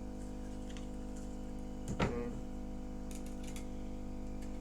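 Hot air rework station running with a steady hum. A short knock comes about two seconds in, followed by a few light clicks of small tools being handled.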